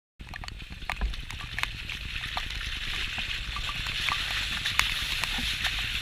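Pickup truck's tyres rolling through wet mud and puddles: a steady hiss of water and splashing that grows a little louder, over a low engine rumble, with scattered ticks of mud or water hitting the body. It starts abruptly just after the start.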